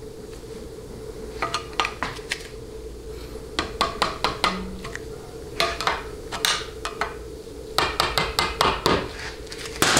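Screwdriver tapping the end of the steel feed pipe on a 700R4 auxiliary valve body to seat it: sharp metallic taps in quick runs of several, over a steady faint hum.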